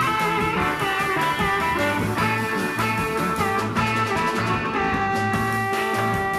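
Instrumental break of a blues-rock song, with an electric guitar playing a lead line over bass that settles into a long held note near the end.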